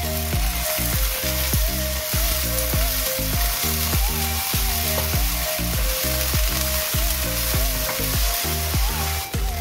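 Chopped onions, shiitake mushrooms and tomato purée sizzling in a hot wok as they are stirred with a wooden spoon, under background music.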